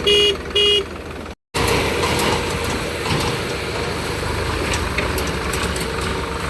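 Two short, loud horn beeps, then diesel engines of the backhoe loader and tractors running steadily, with a low pulsing rumble and occasional clanks.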